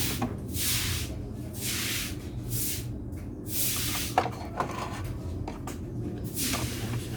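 Repeated short scraping strokes, about one a second, from hand work on a speaker being repaired. They pause for a couple of seconds midway, where two sharp knocks sound, over a steady low hum.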